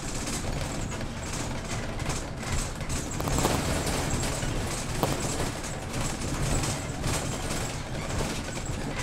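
Inside a moving double-decker city bus: steady engine and road rumble with scattered clicks and rattles.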